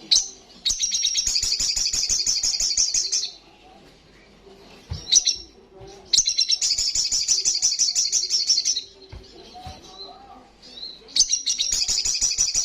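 Olive-backed sunbird singing its loud, rapid trilling song in three bursts of about two and a half seconds each. Short single call notes come between the bursts.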